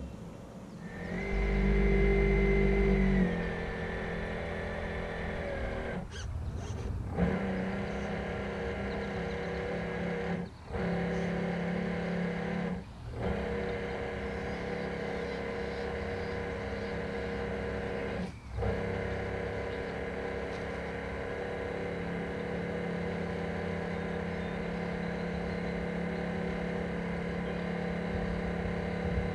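Motor of an RC model container ship running steadily, heard close up from on board, with a high whine over a lower hum. It is louder from about one to three seconds in and dips briefly four times.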